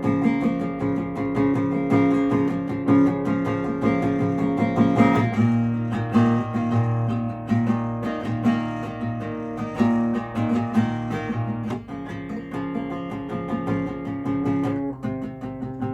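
Acoustic guitar strummed in sustained chords, with the chord changing every few seconds.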